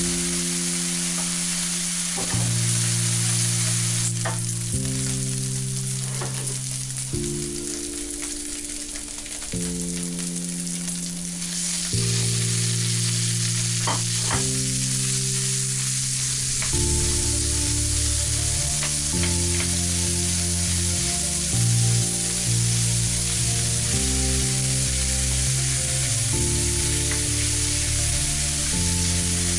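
Bacon and minced beef sizzling in a frying pan as they are stirred with a wooden spoon, with a few sharp clicks. Background music plays underneath, its chords changing every couple of seconds and getting busier past the halfway mark.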